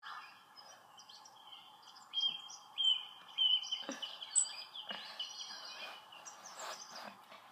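Birds chirping, with many short high chirps coming thickest from about two seconds in over a faint steady hiss, and a few brief rustles.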